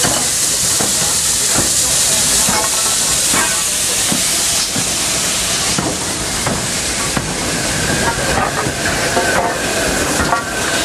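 Two steam locomotives, a Great Western 4-4-0 and BR Standard Class 5 4-6-0 No. 73096, rolling slowly past at close range with a steady loud hiss of steam and irregular clanks and knocks from the wheels and motion. A thin high squeal joins in during the last few seconds.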